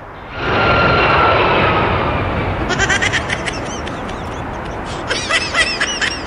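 A rush of noise with a high, slowly falling whine. Then a fast run of short quacking or bleating calls, about five a second, begins a little under halfway through.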